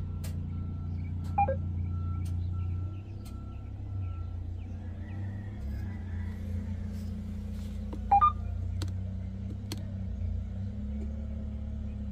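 Detroit Diesel DD13 engine idling with an uneven, shifting hum, heard from inside the cab: a very loud, weird-sounding unstable idle caused by a failed fuel rail pressure sensor. Two short electronic beeps, one about a second and a half in and one about eight seconds in.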